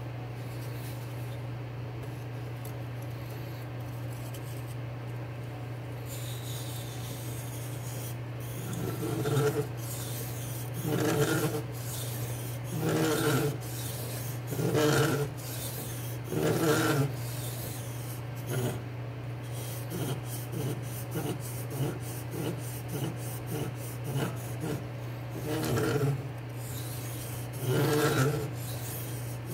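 A D2 steel knife blade, clamped in a DMT Aligner guide, is drawn across a King K80 whetstone in rasping sharpening strokes. For the first eight seconds or so there is only a steady low hum. Then slow strokes come about every two seconds, a run of quicker, lighter strokes follows in the middle, and slower strokes return near the end.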